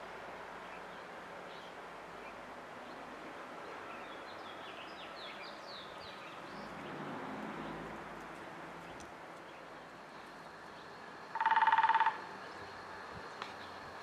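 Woodpecker giving one short, loud rolling call, a rapid trill under a second long, near the end. Fainter high bird chirps come about four to six seconds in, over a steady faint background noise.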